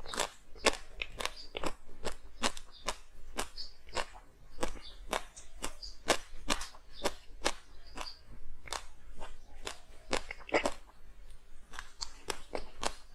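Close-up crunching of hard frozen ice being bitten and chewed, sharp brittle cracks about twice a second at an uneven pace.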